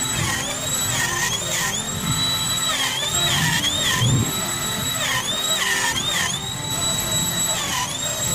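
Handheld trim router running at a high whine while cutting grooves into a wooden door panel along a straightedge. Its pitch dips briefly every second or so as the bit loads up in the cut, then recovers.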